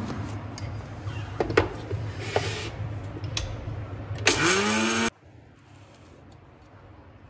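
Electric mixer grinder running with its small steel dry-grinding jar, grinding whole cumin, carom seeds, black pepper and cloves into powder. The motor runs steadily, rises in pitch and gets loudest about four seconds in, then cuts off abruptly about five seconds in.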